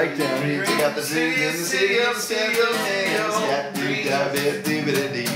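Steel-string acoustic guitar strummed in a steady rhythm, accompanying a song.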